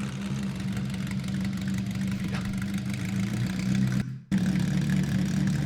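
A car engine idling steadily, with an even low running note. It cuts out for a moment about four seconds in and comes back slightly louder.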